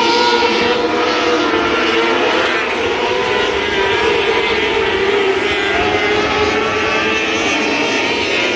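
A field of 600cc wingless micro sprint cars racing on a dirt track: several high-revving motorcycle-type engines running at once, their pitches rising and falling as the cars circle the oval.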